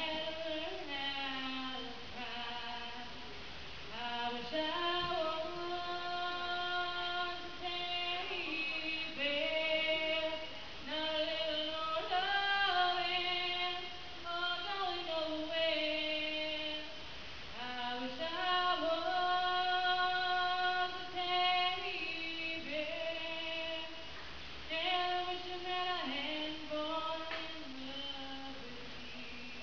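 A woman singing solo with no accompaniment, in phrases of long held notes separated by short breaks.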